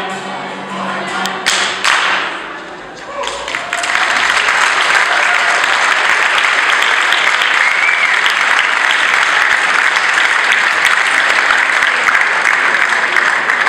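A choir's singing ends and, after a short lull with scattered first claps, the crowd breaks into steady applause about four seconds in.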